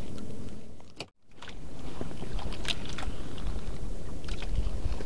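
Steady low rumble of a motor running on a small fishing boat, with a few light handling clicks; the sound cuts out for a moment about a second in.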